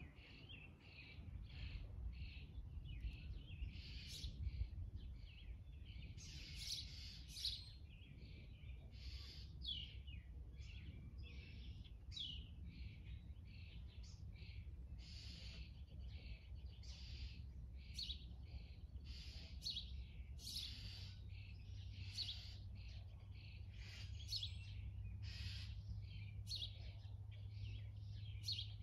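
Birds chirping outdoors: many short, high calls one after another, over a steady low rumble.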